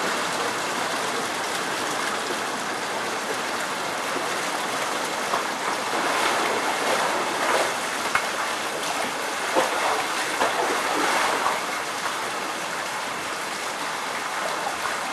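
Steady rush of running water in an indoor swimming pool, with a few small splashes.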